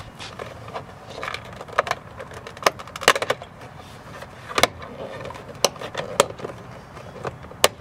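Plastic interior door trim strip on a Chevy Colorado being pulled off by hand, its push-in clips letting go in a series of sharp clicks and snaps.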